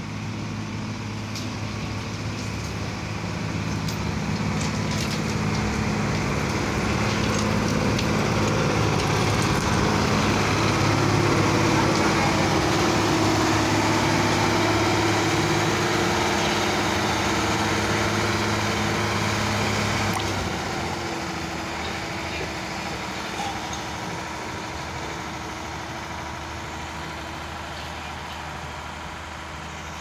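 Diesel engine of a road-rail dumper truck running along railway track on its rail wheels, growing louder as it comes close and passes, then fading. The engine note shifts about halfway through and drops about twenty seconds in.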